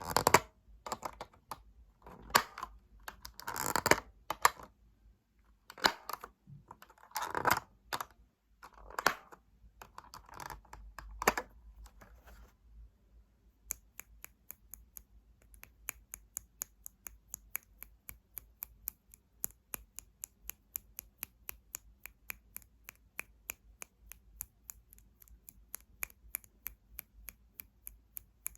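Fingernails tapping on hard objects: for about the first twelve seconds, irregular fuller taps and strokes; then, after a short pause, a fast, even run of light, sharp clicks, about five a second.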